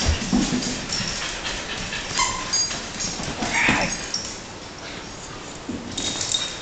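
Small dog whimpering in short bursts as it wrestles a plush toy, with a louder burst about three and a half seconds in.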